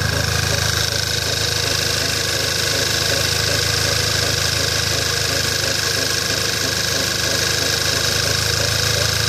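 Skoda Octavia A5 engine idling steadily with a creak in the engine that sounds like something rubbing, a repeated "kyk-kyk-kyk". The owner cannot place it; it appears about a minute after starting and does not affect how the car drives.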